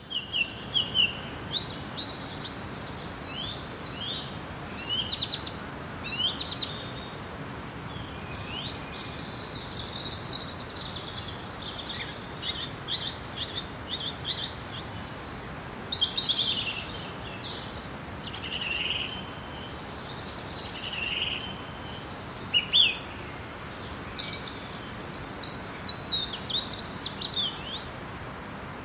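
Daytime forest ambience: several songbirds chirping and trilling on and off over a steady background hiss.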